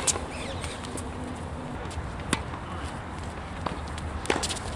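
Tennis rally: sharp pops of a tennis ball struck by rackets and bouncing on the hard court, a second or so apart. The loudest hits come right at the start and again near the end.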